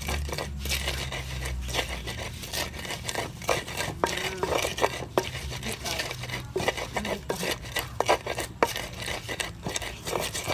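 A pestle pounding and grinding roasted peanuts and red chillies in a wide, shallow mortar. Irregular knocks and crunching scrapes as the nuts are crushed for rojak peanut sauce.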